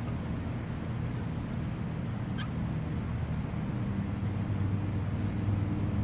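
Steady low hum, getting slightly louder toward the end, with a thin high whine above it and a faint short chirp about two and a half seconds in.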